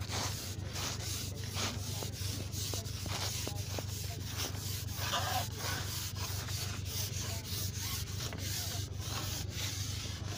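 Steady scratchy rubbing noise with frequent small crackles throughout, over a low steady hum.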